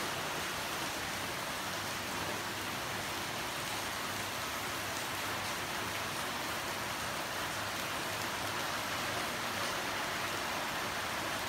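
Rain falling steadily on a pond and the surrounding palms and foliage: an even, continuous hiss.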